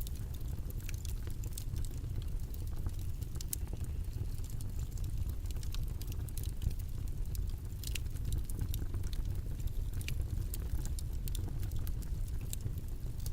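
Steady low rumbling background noise, with many small irregular clicks and ticks scattered through it.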